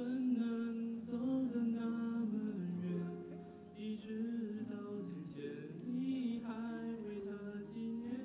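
A young man singing a slow song into a handheld microphone, holding long notes that glide between pitches, with a soft accompaniment of low sustained notes underneath.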